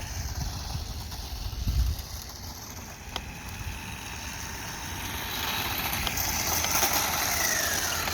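Electric RC car driving on pavement, its tyres hissing as it comes closer over the last few seconds. A short falling whine near the end comes as it passes. Low rumble throughout.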